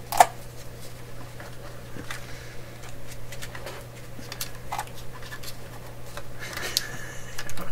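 Small clicks, ticks and rustles of fingers handling a small nut and parts on a metal radio chassis, with one sharp click just after the start and a spell of rustling near the end. A steady low hum runs underneath.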